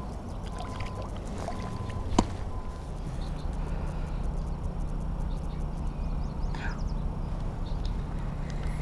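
Water moving around a float tube with a steady low rumble while a largemouth bass is let go, and one sharp click about two seconds in.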